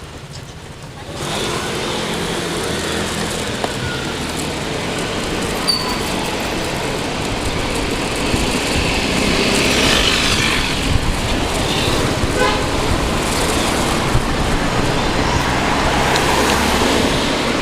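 Wind rushing over the microphone and road traffic noise while riding an electric scooter on the road, the noise jumping up sharply about a second in and staying loud.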